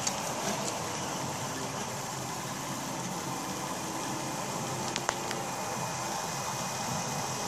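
Prusa Mendel i2 3D printer running a print: a steady whirring hiss with faint high steady tones, and a few short clicks, one at the start and a small cluster about five seconds in.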